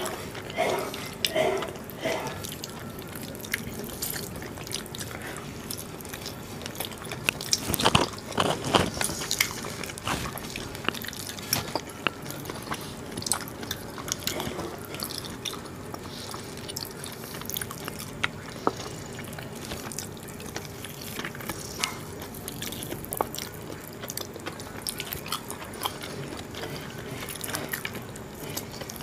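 Eating by hand close to a microphone: fingers squish and mix curry-soaked rice and mutton on the plates, with mouth-close chewing. The sound is a steady scatter of small wet clicks, thickest and loudest about eight seconds in.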